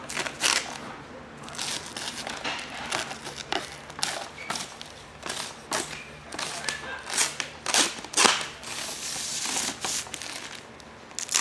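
Clear plastic protective film being peeled by hand off a poster frame's plastic lens cover, crinkling and crackling irregularly, heaviest about eight to ten seconds in.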